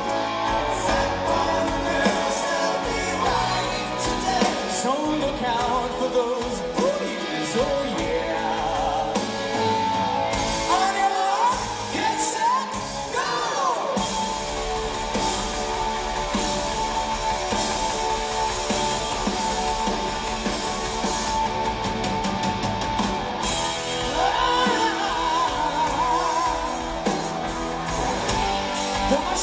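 Live rock band with a male lead singer playing in a large arena, heard from among the audience. About halfway through, the singing gives way to a steadier instrumental passage with bright cymbals, and the voice comes back near the end.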